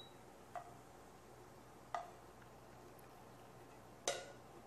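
Three faint, short clicks from a plate and cookware being handled, spaced about a second and a half apart, against near-silent room tone; the last click is the loudest.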